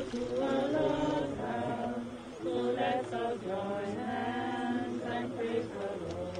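A group of people singing together, sustained sung lines with several voices at once and no instruments standing out.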